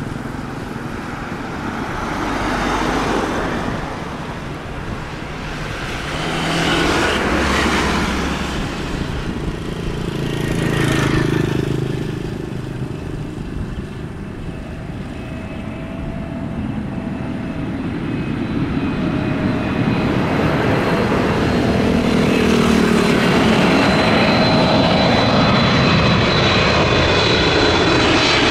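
Boeing 777-300ER on final approach, the rumble and whine of its GE90 engines building steadily over the second half as it comes near overhead.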